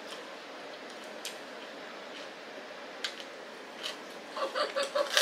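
Eating at a table: a few light clicks of chopsticks against dishes over a steady room hum, then a run of crisp chewing of napa cabbage wraps about four seconds in.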